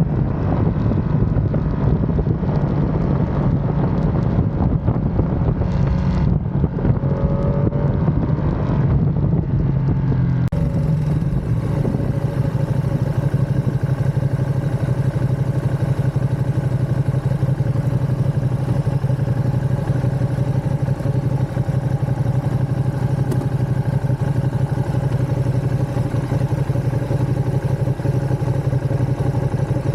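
Ducati Panigale V2's L-twin engine running as the bike is ridden, its pitch shifting up and down a few seconds in, then holding a steady even engine note for the rest.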